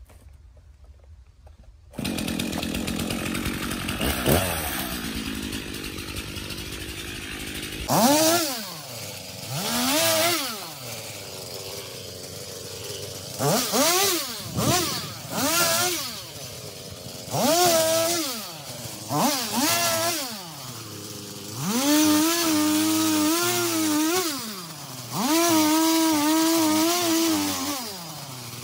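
Two-stroke chainsaw cutting wood, its engine revved up and down in short bursts every second or two, then held at high revs for two or three seconds at a time, twice, near the end.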